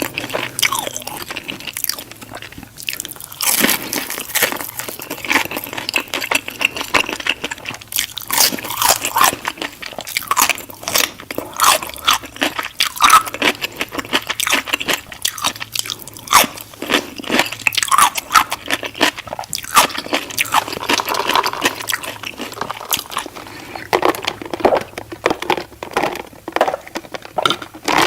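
Close-miked eating of crispy fried chicken: repeated bites and steady chewing, with dense, irregular crunches and crackles of the crust.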